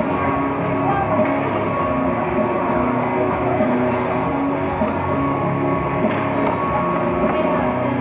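Rock music with electric guitar playing steadily.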